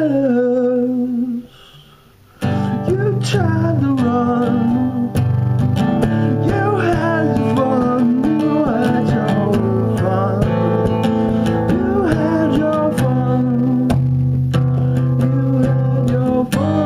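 A man singing while strumming an acoustic guitar. The playing and singing stop for about a second near the start, then pick up again.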